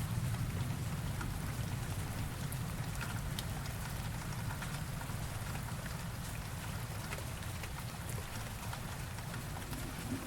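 Steady rain with scattered drop ticks, over a low rumble of thunder that dies away through the first seconds.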